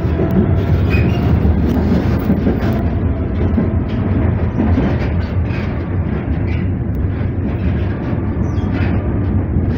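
Tatra KT3UA articulated tram under way, heard from inside the passenger cabin: a steady low rumble of wheels on rail and running gear, with a few light rattles.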